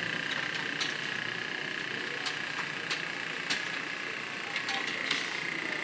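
Computer keyboard keys being typed, irregular sharp clicks several a second, over a steady background hiss.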